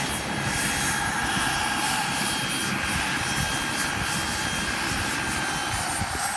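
A large radio-controlled BK 117 scale model helicopter, sitting on the ground, with its engine running as a steady high whine over a rough low rushing noise. Near the end the whine starts to drop in pitch as the engine winds down.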